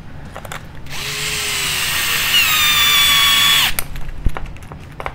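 Power drill driving a screw into the plastic shock tower for about three seconds, its whine dropping in pitch as the screw bites, then stopping suddenly, short of full seating so the plastic does not strip. A few light clicks follow.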